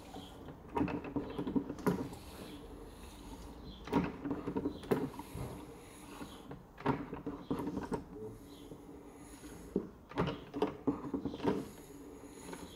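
Brass beer hand pump being worked stroke by stroke, its mechanism knocking and beer splashing and gurgling into a pint glass, in irregular strokes a second or more apart.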